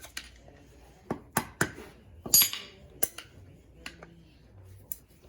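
Steel screwdriver clinking and scraping against the metal of a wheel-bearing housing while prying at the bearing's snap ring: about eight sharp metallic clicks, the loudest about halfway through with a short ring after it.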